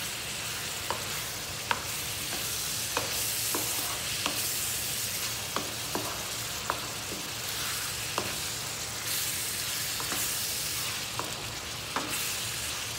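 Sliced meat sizzling as it browns in a nonstick frying pan, stirred with a wooden spatula that knocks and scrapes against the pan in irregular clicks about once a second.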